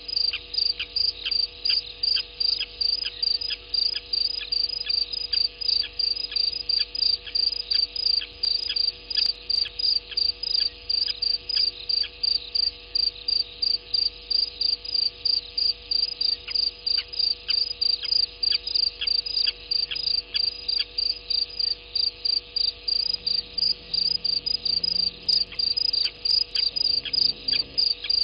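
Cricket chirping steadily in a fast, even rhythm, about two to three high chirps a second.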